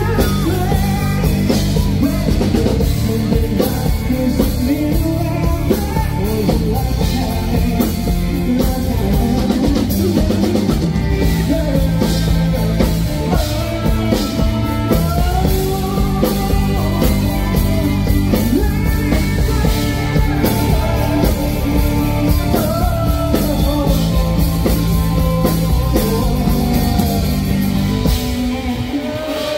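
Live rock band with drum kit and bass playing through a PA while a male singer belts the melody into a handheld microphone. The band drops away near the end as the song finishes.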